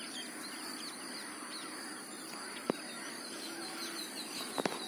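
Outdoor ambience of small birds chirping over and over, busier in the second half, over a steady high-pitched hiss, with a few faint clicks.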